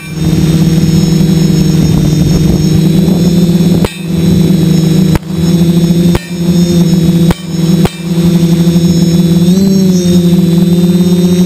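DJI 450 quadcopter's motors and propellers whining steadily at a held pitch, with a brief dip and rise in pitch about ten seconds in. The sound cuts out sharply several times and swells back each time.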